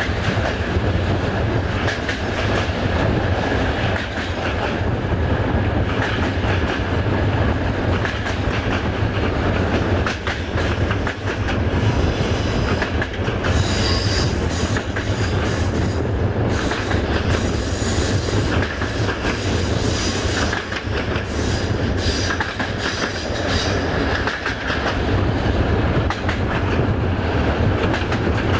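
Passenger train rolling along the track, heard from on board: a steady low rumble of wheels on rails with clickety-clack, and high-pitched wheel squeal coming and going through the middle stretch.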